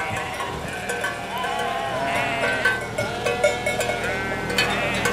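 A flock of sheep bleating, many overlapping calls, with bells clanking among them.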